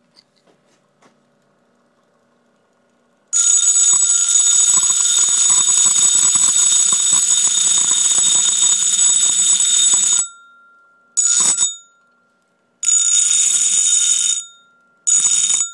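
Powered sharpening grinder: metal held hard against the spinning wheel makes a loud, harsh grinding with a high whistling edge for about seven seconds, then is touched to it three more times briefly. The motor whine carries on in the pauses. The motor holds its speed under the load without slowing down.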